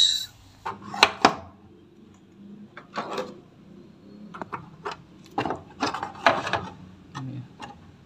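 Handling noises from work on a washing machine's door-switch wiring: two sharp clicks about a second in, then a series of short scraping and rustling sounds with scattered clicks.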